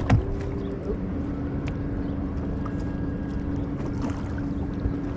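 Boat motor running steadily, a constant low hum over rumble and wind noise, with a single sharp knock right at the start.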